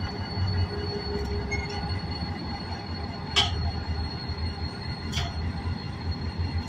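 Freight train of empty cement hopper wagons rolling slowly behind an EMD GT22-CW diesel-electric locomotive. The wheels give a steady high squeal over a low rumble. Two sharp clanks come from the running gear, a loud one a little over three seconds in and a lighter one about five seconds in.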